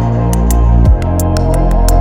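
Ambient electronic music track: held bass notes and a steady synth tone under crisp hi-hat-like ticks, with a bass note sliding down into a new one about a second in.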